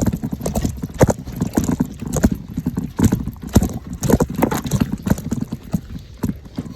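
Mountain bike clattering over a rough dirt trail: a steady run of irregular knocks and rattles over a low rumble, easing off near the end.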